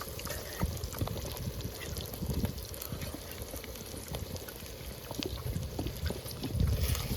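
Ground paste or liquid being poured into a cooking pot, with small clicks of a utensil.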